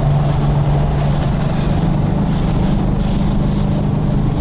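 A tuned 2017 Ford Mustang GT's 5.0-litre V8 running at a steady low, even drone while the car moves at a constant pace.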